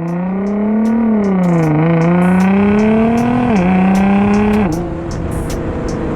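Nissan GT-R's twin-turbo V6 accelerating hard through the gears: the engine note climbs, then drops at each upshift, three shifts in all, and settles to a lower, quieter steady note about two-thirds of the way through.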